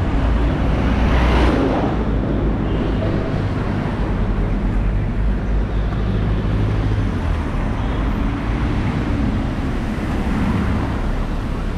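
Street traffic: an Ashok Leyland city bus passes close by, loudest about a second in, then steady traffic noise of passing cars and motorbikes.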